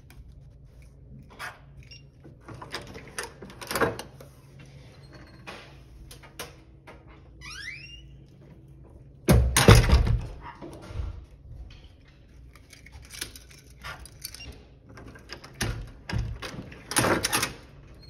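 Hotel room door with an electronic keycard lock and lever handle being worked: scattered clicks and rattles, a brief rising chirp about eight seconds in, a loud thud about nine and a half seconds in, and another cluster of knocks near the end.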